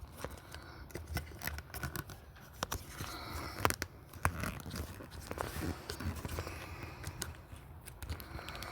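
Irregular small clicks and scraping, rustling noises close to the microphone, like something being handled.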